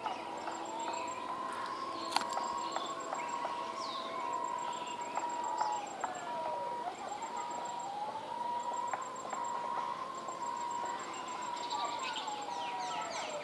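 A siren wailing slowly: its tone rises, holds for a few seconds and falls away, twice over. Birds chirp over it.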